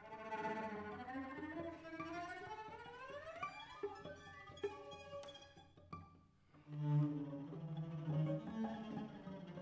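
Trio of cellos playing: several lines slide upward together in slow glissandi, a few short sharp notes follow, then after a brief near pause a strong low sustained note comes in about seven seconds in.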